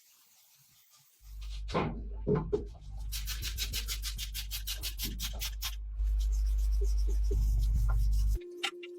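Machine polishing of a clear-coated motorcycle gas tank: a steady low hum with rubbing, rapid ticking in the middle, cutting off suddenly near the end.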